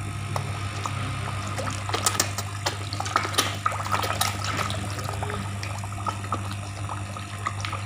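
A crowd of koi thrashing and gulping at the water surface around a hand, making a busy run of short splashes and slaps that is thickest in the middle and then thins out. A steady low hum runs underneath.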